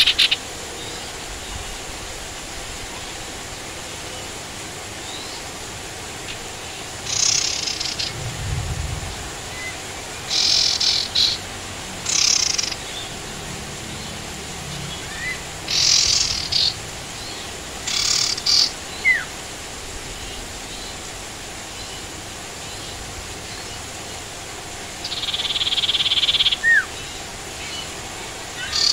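A sirtu songbird calling in short bursts of rapid, high chirping, about six of them, the last one longer, with a few single rising chirps between. The calls sit over a steady hiss of rain.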